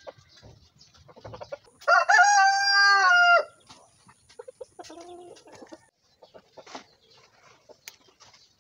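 A rooster crows once, loud, for about a second and a half, starting about two seconds in. A fainter, shorter chicken call follows about five seconds in, over faint scattered clicks and rustling.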